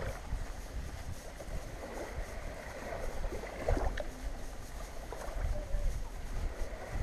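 Gentle wavelets lapping on a sandy shore, with low wind rumble on the action-camera microphone.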